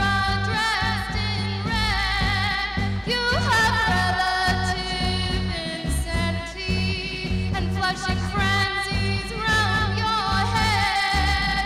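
Live band playing: a woman sings a melody with vibrato over electric bass, electric guitar and a drum kit keeping a steady beat.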